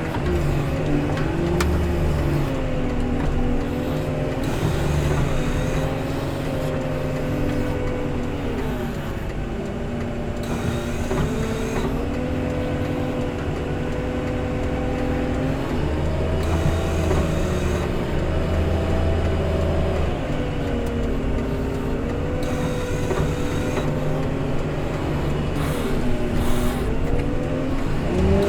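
Engine of a heavy snow-clearing machine running under load, its pitch rising and falling every few seconds as the revs change.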